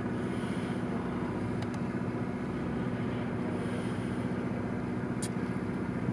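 A boat's engine running steadily, a low even hum, with wind noise on the microphone. Two faint clicks come about a second and a half in and again near the end.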